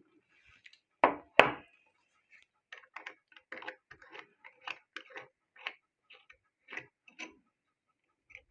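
Screw-down watch case back being broken loose with a case back remover tool, the watch held in a case vise: two sharp cracks about a second in, then a run of small, irregular metal clicks and ticks as the case back is turned off.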